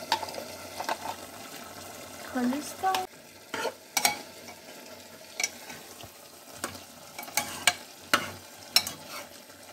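A spoon stirring chicken curry in a pan just after garam masala has gone in, knocking and scraping against the pan at irregular intervals. Under it the chicken cooks with a steady sizzle.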